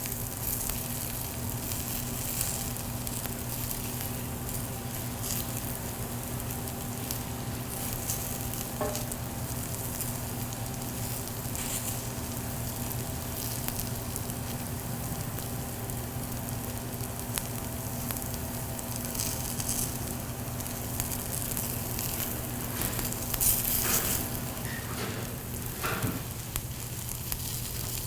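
Potato pancakes sizzling and crackling as they fry in butter and canola oil in a pan, with a few louder clicks near the end. A steady hum runs underneath and stops about 25 seconds in.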